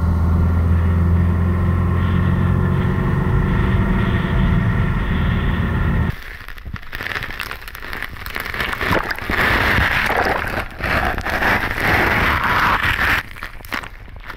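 Car driving, a steady low engine and road hum heard from a camera on the bonnet; about six seconds in it cuts abruptly to small waves washing and splashing right over a camera at the water's edge, surging unevenly.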